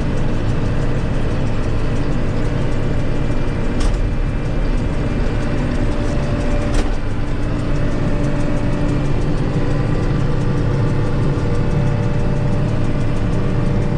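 John Deere 8820 combine running steadily while harvesting wheat, a constant engine and machine drone. Two faint clicks come about four and seven seconds in.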